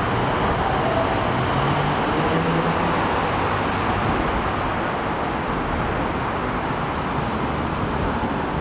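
Steady street traffic noise from passing vehicles, continuous and even throughout.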